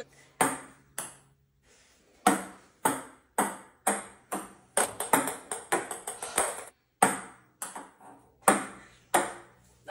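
Ping pong balls bouncing on a wooden tabletop: a series of sharp, ringing clicks, some in quick runs of several bounces as a ball hops along and settles.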